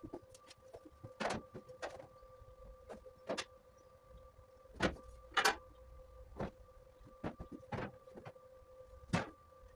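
Metalwork on an aluminium fuel tank: irregular short sharp knocks and crackling bursts, about a dozen, over a steady electrical hum.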